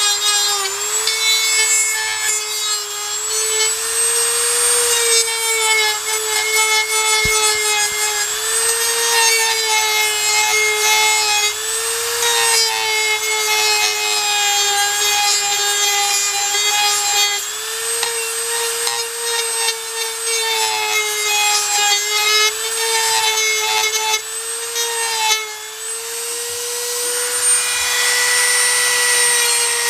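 Small high-speed power tool running steadily under load, its whine dipping slightly and recovering again and again as it cuts and grinds material down so the double-DIN stereo will fit.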